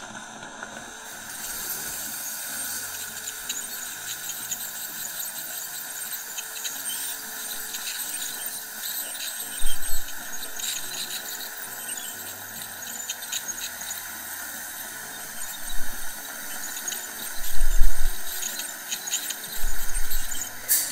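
Ultrasonic dental scaler whining steadily as it lifts stain off teeth around orthodontic brackets, with the hiss of its water spray and a dental suction tip. A few louder low knocks come about halfway and near the end.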